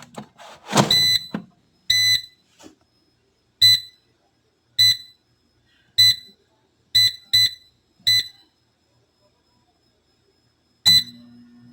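Short electronic beeps at uneven intervals, about nine in all, like the button tones of a kitchen appliance's control panel. Just after the last beep near the end, a low steady hum starts.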